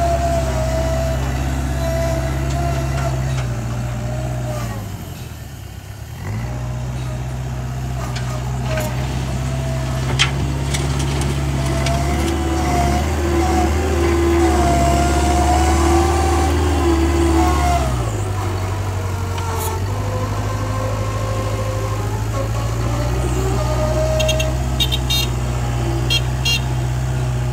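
TCM Tomfighter 808A mini wheel loader's engine running under load as the machine scoops and lifts dirt. Its note dips for a moment about five seconds in and shifts again about eighteen seconds in. A higher whine rises and falls above the engine, and a few quick clicks come near the end.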